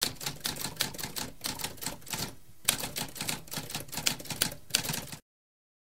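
Typewriter typing: a quick run of key strikes with a short pause near the middle, stopping abruptly about five seconds in.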